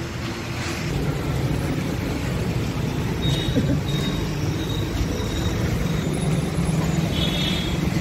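Road traffic noise: a steady low rumble of passing vehicles that grows louder about a second in, with a few faint high-pitched tones in the second half.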